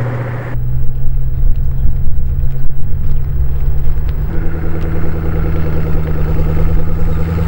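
A car engine running with a steady deep rumble, its tone shifting slightly about four seconds in.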